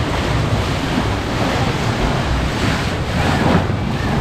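White water of a river rapids ride rushing and splashing around a round raft, a steady rush of water heard from on board.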